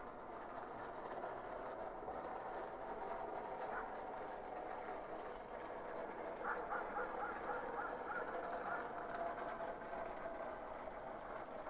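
Distant dogs barking, with a quick run of barks about six and a half seconds in, over a steady background hum.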